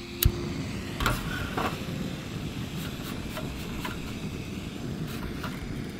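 Jetboil backpacking stove: a sharp click about a quarter second in, then the gas burner's steady rushing hiss, with a few small clicks and knocks from the stove parts being handled.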